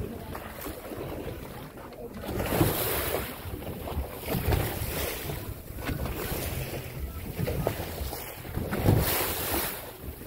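Wind buffeting the microphone over the rush and splash of seawater along a small boat's hull, with no steady engine note. Two louder gusts come about two and a half seconds in and near the end.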